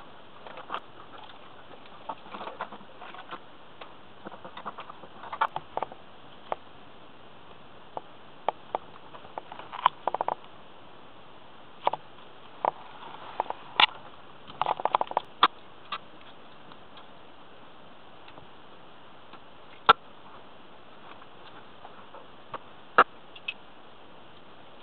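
Irregular clicks, taps and rustles of hands working wires and breakers into a metal electrical sub panel box. They are busy for the first half, then only a few single sharp clicks follow.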